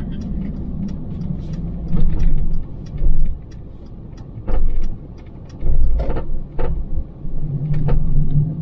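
Car moving slowly, heard from inside the cabin: a low engine and road rumble with several heavy low thumps and scattered light rattling ticks.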